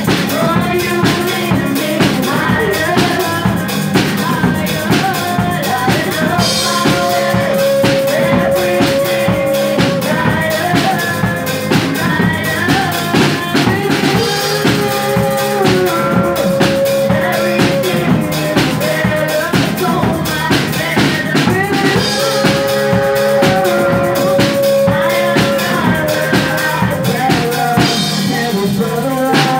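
Live worship band playing a song: a steady drum beat, electric guitar and keyboard, with voices singing long held lines into microphones.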